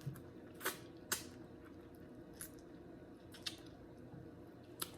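Faint close-up eating sounds: chewing a mouthful of seafood gumbo, with about six short wet mouth clicks scattered through.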